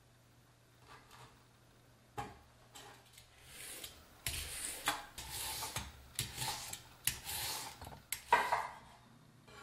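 Handling noises: a knock, then several seconds of scraping and rubbing, ending with another knock.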